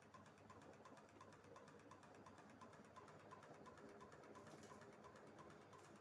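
Industrial ceiling fan running faintly, a low motor hum with a light tick repeating about three times a second.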